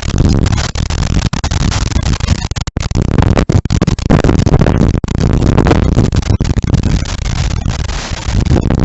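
Strong storm wind buffeting the microphone: a loud, surging low rumble with brief dropouts, in a severe windstorm with rain.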